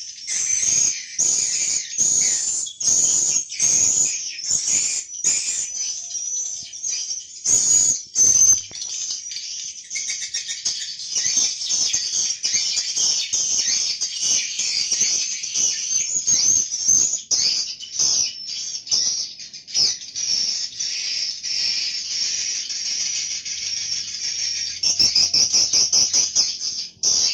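Swiftlets twittering continuously in high, dense chirps, mixed with many sharp clicks and a quick run of clicks near the end.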